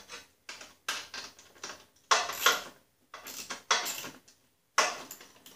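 Irregular metallic clinks and rattles of a riding mower's seat mounting bolts and nuts being fumbled into place under the seat, in short uneven bursts with pauses between.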